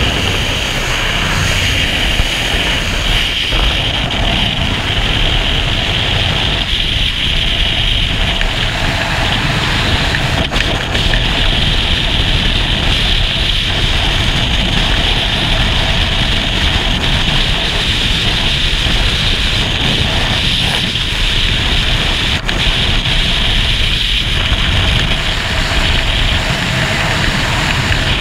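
Loud, steady rush of freefall wind buffeting a skydiver's camera microphone, with a strong hiss over a low rumble.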